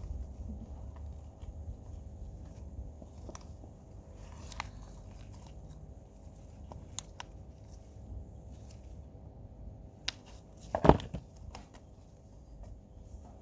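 Scattered light clicks and knocks of handling, with one much louder knock about eleven seconds in.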